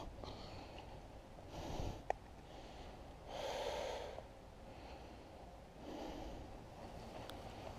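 A person breathing out heavily close to the microphone: three breaths about two seconds apart, the middle one the loudest, with a single sharp click about two seconds in.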